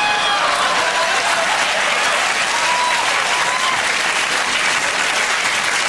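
Studio audience applauding steadily, with a few voices rising above the clapping.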